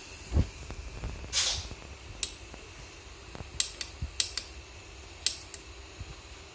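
Scattered sharp clicks and taps from handling the 3D printer and pressing its controls, with a short rustle about a second and a half in, over a steady low hum.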